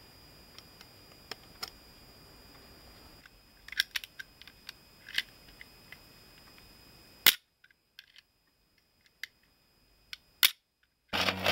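Hahn .45 revolver's action being worked by hand: light clicks of the hammer and cylinder being cocked, then two sharp loud snaps of the hammer falling, about three seconds apart, as it is dry-fired to test the rebuilt lockwork.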